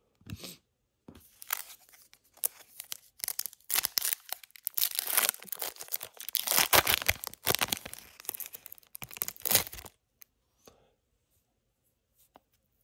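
A foil wrapper of a Topps Chrome trading-card pack being torn open and crinkled, a run of tearing and rustling that is loudest in the middle and stops a few seconds before the end.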